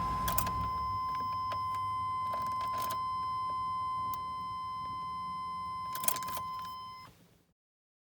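In a Chevy Silverado pickup, a steady high-pitched warning tone sounds while a low engine rumble dies away within the first second. A few clicks and key jangles follow, and everything cuts off abruptly about seven seconds in.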